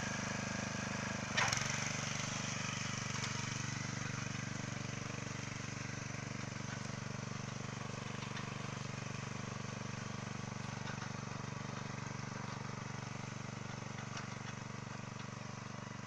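Walk-behind tractor engine running steadily as it pulls a potato digger through the rows, with one short knock about a second and a half in.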